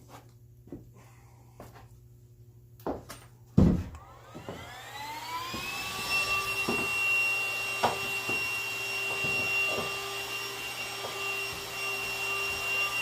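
A shop vacuum switched on after a knock about three and a half seconds in: its motor winds up for about two seconds to a steady whine and rush of suction, cleaning sanding dust out of the boat, with scattered knocks of the nozzle against the hull.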